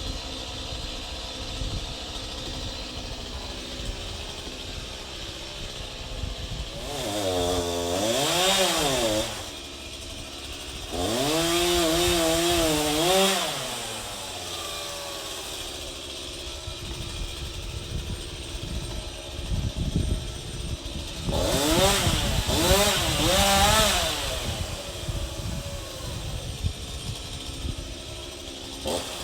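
Two-stroke chainsaw idling, revved up hard three times (about seven, eleven and twenty-one seconds in), its pitch rising and falling with each burst of throttle, as it cuts into a tree.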